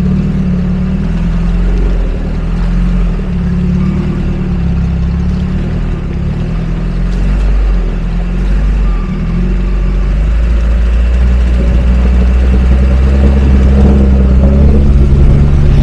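Lada Niva 4x4 engine running under load while driving off-road, its pitch rising and falling with the throttle, growing louder in the second half.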